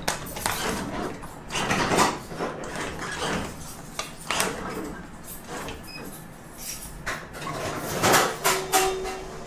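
Claw crane machine at work: the mechanism runs with repeated rattling clatters as the claw moves down on its cable, and a short steady electronic tone sounds near the end.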